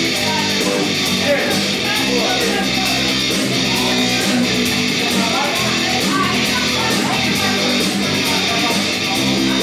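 Live rock band playing an instrumental passage between sung lines: strummed guitars over a steady drum beat, without vocals.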